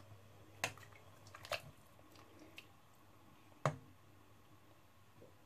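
Broth stirred with a plastic spatula in a stainless-steel stockpot: soft liquid swishing with a few light clicks of the utensil against the pot, the sharpest about three and a half seconds in.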